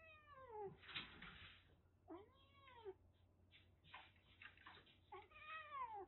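Calico kitten in a threatening mood, yowling three times, each call swooping up and down in pitch, with sharp hisses between the calls.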